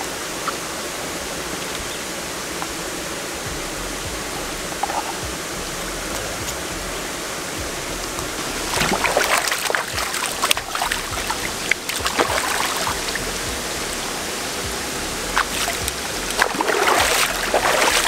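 Shallow stream water running steadily over rock, with splashing as a gutted snapper is rinsed and swished through the current, about nine seconds in and again near the end.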